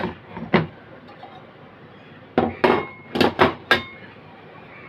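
Aluminium inverter heatsink casing clinking and knocking as it is handled and set down: one knock about half a second in, then a quick run of five or six metallic clinks, some briefly ringing.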